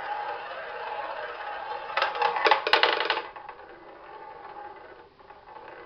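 Ball rolling around the track of a tabletop roulette wheel, a steady whir. About two seconds in, it drops and clatters loudly against the wheel for about a second. After that, a quieter rolling rattle continues as the wheel spins on.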